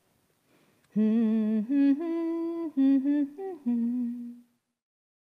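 A woman humming a short tune of about seven held notes, starting about a second in and stopping shortly before the end.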